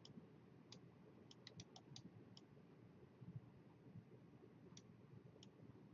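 Near silence with about ten faint, sharp clicks, a quick run of them about a second and a half in and a few more later.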